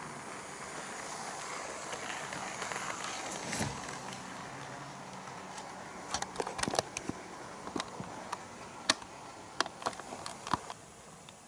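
HO-scale model train, an EF81 electric locomotive hauling Koki 50000 container wagons, running on sectional track: a steady rolling noise of wheels and motor that swells as it passes, followed by a scattered series of sharp clicks in the second half.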